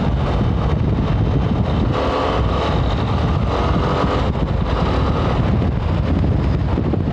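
Yamaha Ténéré 250's single-cylinder engine running at a steady cruise, buried in heavy wind rumble on the action camera's microphone.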